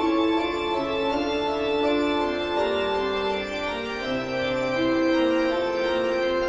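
Eerie organ music for a Halloween horror soundtrack, with slow held chords whose notes shift about every second or two.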